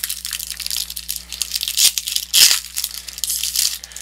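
Foil wrapper of a Pokémon Fusion Strike booster pack crinkling as it is torn open and the cards are pulled out. The loudest burst of crackle comes about halfway through.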